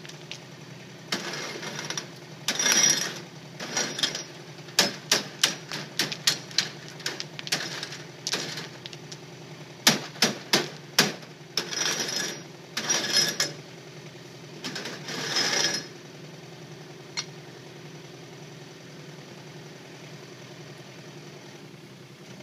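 Kubota K008 micro excavator's diesel engine running steadily while stones and steel clatter in rapid bursts of sharp knocks as stony soil is screened. The clattering stops about two-thirds of the way through, leaving the engine running alone.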